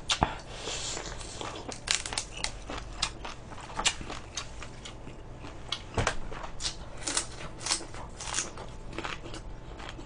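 Close-up eating sounds: chewing and biting food, with scattered sharp clicks and crinkles from handling food and chopsticks.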